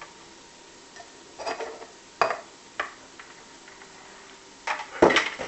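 Handling noises from setting up a styrofoam cooler and a small fan: a few scattered knocks and clicks, with a louder cluster near the end.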